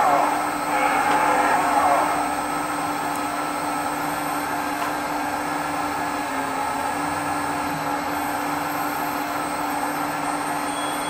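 Hydraulic pump of a LESU Hidromek HMK 490 radio-controlled excavator running as it works the scrap grapple. It is louder for the first two seconds, then settles to a steady whine.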